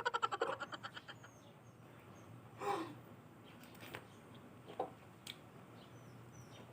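Rambutan rind being torn open: a quick crackling rip that fades within the first second. Then a couple of soft breathy mouth sounds, typical of eating the fruit.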